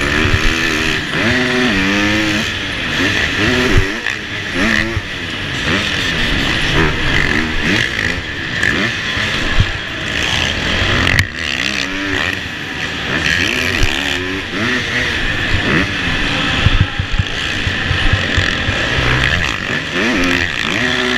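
Motocross dirt bike engine heard from on the bike, its revs rising and falling again and again with the throttle and gear changes as it races around a supercross track, with knocks from the rough dirt.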